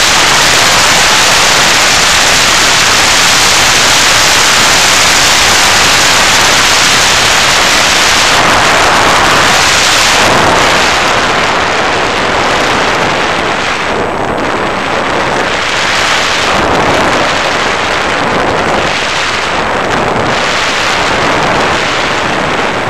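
Airflow rushing over the microphone of an action camera carried on a flying FPV model plane: a loud, steady hiss. About ten seconds in it turns duller and rises and falls in gusts.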